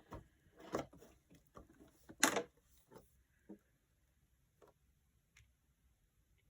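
Hands opening a cardboard advent calendar door and handling the packaging: a quick run of small clicks and crackles, the loudest about two seconds in, then a few faint ticks.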